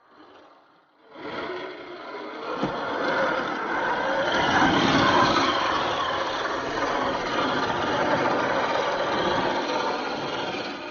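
Small electric motor and gears of a toy RC 4x4 jeep running steadily, starting about a second in.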